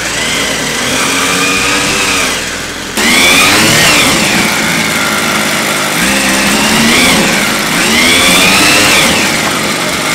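Small two-stroke weedeater engine powering a homemade outboard propeller in a barrel of water, revved up and down repeatedly. It jumps louder about three seconds in, then its pitch climbs and falls several times.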